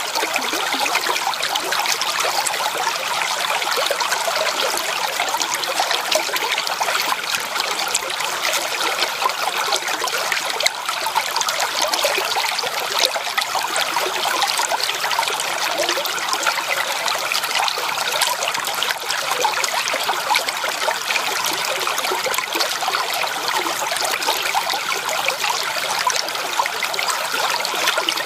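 Shallow creek water trickling and burbling steadily over stones.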